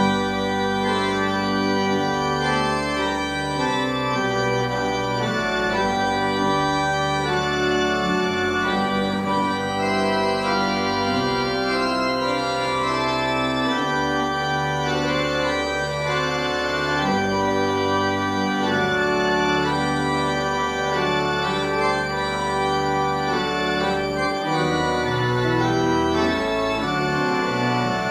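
Organ playing sustained chords as the closing postlude of a church service.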